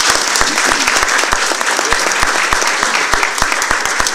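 An audience applauding: many hands clapping in a steady, even patter.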